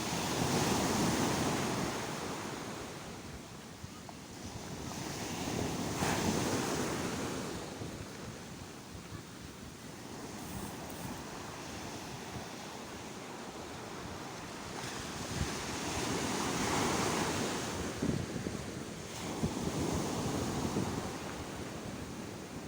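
Sea waves breaking and washing ashore, the surf swelling and fading in slow surges every few seconds.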